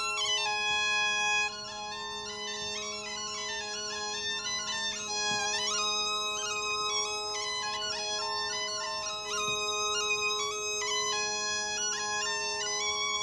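A bagpipe playing a melody of held notes over steady drones.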